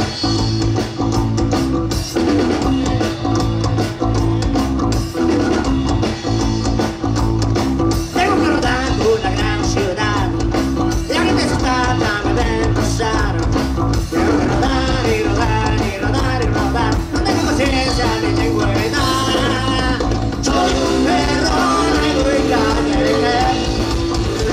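Live rock band playing electric guitar, electric bass and drum kit with a steady beat, with wavering melodic lines over it from about eight seconds in.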